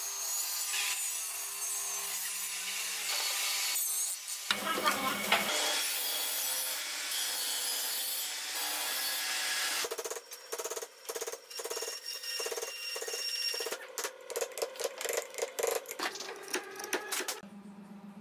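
A table saw cutting into a wooden board for about ten seconds, then a chisel working the wood in a run of short, irregular strokes.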